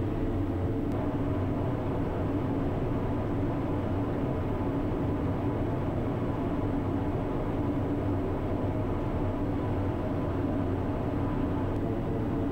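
The TBM 960's Pratt & Whitney PT6E-66XT turboprop running at taxi power, heard inside the cockpit as a steady drone with several steady tones.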